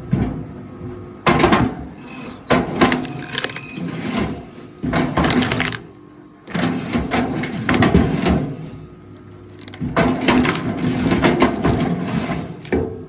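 Wood cracking and squealing as logs are split on a rail log splitter, in several loud bouts that each start suddenly.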